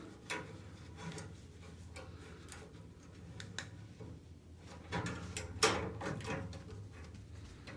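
A few light clicks and taps as the new thermocouple's copper tubing is handled and bent into place against the water heater's pipes and gas control valve, the strongest about five to six seconds in.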